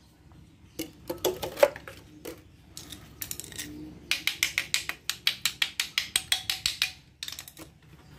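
A screwdriver tapping on a car's fuel filter to knock dirt loose while it is flushed with petrol. A few irregular knocks come first, then a quick, even run of taps, about four or five a second, lasting roughly three seconds, and a few more knocks near the end.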